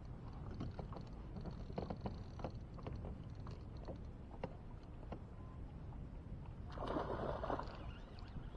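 Water and wind noise around a small boat on a lake, with scattered light ticks. A short, louder rush of noise comes about seven seconds in.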